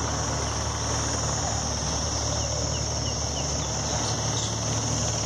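Steady, high-pitched chorus of insects over a low, steady rumble, with a few faint short chirps about halfway through.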